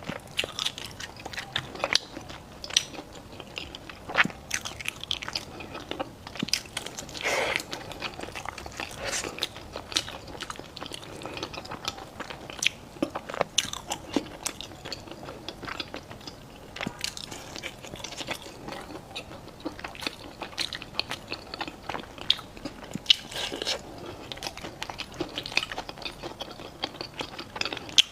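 Close-miked eating: a person biting and chewing food, with frequent short, sharp crunching clicks throughout.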